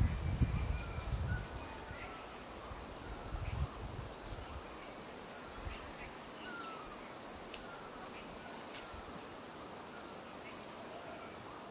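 Forest ambience: a steady high insect drone, with short falling chirps every second or so. Low bumps in the first couple of seconds and again around three and a half seconds in.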